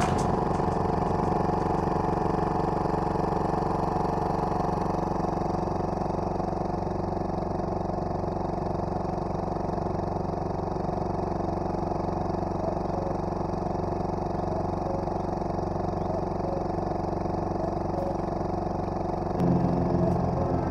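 Small boat outboard motor running steadily at cruising speed, pushing the boat across calm water. The sound grows somewhat louder and fuller near the end.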